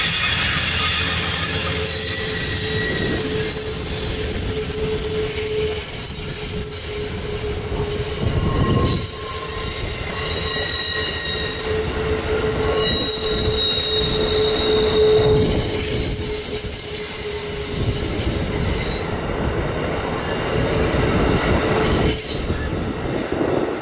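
Amtrak passenger coaches rolling past, their wheels squealing in several high steady tones that shift from car to car over the rumble of the train, with a few sharp clicks from the rails. The squeal stops and the sound falls off near the end as the last car passes.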